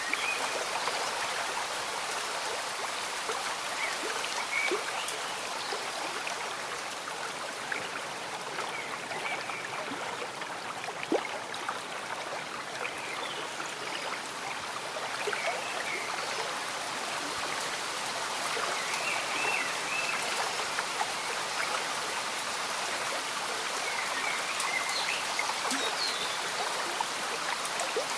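A gently running stream mixed with steady rain and scattered drips, with short faint chirping calls now and then.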